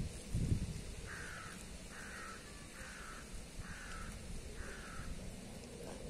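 Wind in the leaves of autumn trees, with a gust buffeting the microphone at the start. A bird gives five harsh, caw-like calls in a series, each about half a second long.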